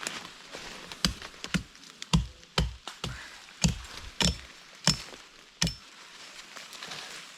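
Brush being chopped to clear a portage trail: about ten sharp, woody chops with a heavy thud, at irregular spacing of roughly half a second to a second, stopping about six seconds in.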